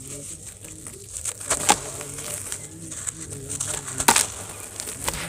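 Wet chunks of white sand crushed and crumbled by hand in a basin of water, with a gritty crunching and a sharp crunch about one and a half seconds in and another about four seconds in.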